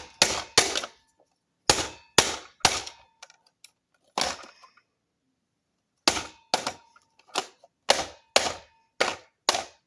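Screwdriver striking the plastic control panel of a clock-radio iPod dock again and again: about six sharp hits, a pause of nearly two seconds, then eight more at about two a second, some leaving a faint ring.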